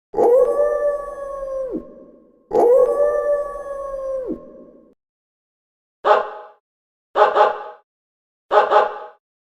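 A dog howls twice, each a long call held on one pitch that drops away at the end, then gives short doubled barks, three of them about a second apart.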